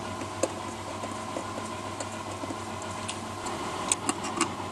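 Hand screwdriver driving screws into an aluminium battery box lid, giving a few scattered light clicks of metal on metal over a steady background hum.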